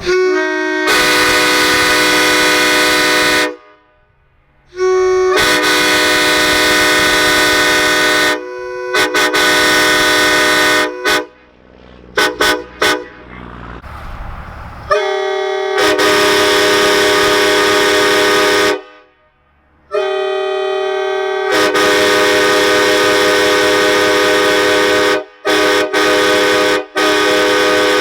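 Vehicle horns blaring together in about five long blasts of two to four seconds each, several pitches held at once like a chord, with a cluster of short toots in the middle and two quick toots near the end.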